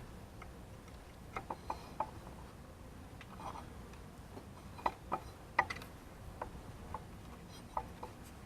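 Irregular light clicks and taps of a hand tool, a screwdriver, at work on the crankshaft position sensor's fastening, about a dozen scattered hits with the sharpest a little past the middle.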